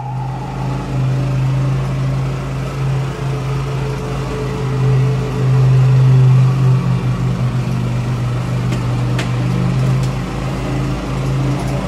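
Automatic motor scooter's engine running steadily as it rides through a concrete tunnel, swelling a little about halfway through.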